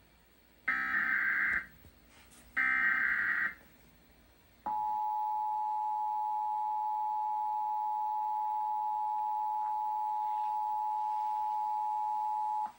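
Emergency Alert System SAME header data bursts: two harsh screeching digital bursts, each about a second long and a second apart. About a second and a half after the second burst the EAS two-tone attention signal (853 and 960 Hz) starts and holds steady for about eight seconds, then cuts off abruptly. Together these are the opening of a required monthly test.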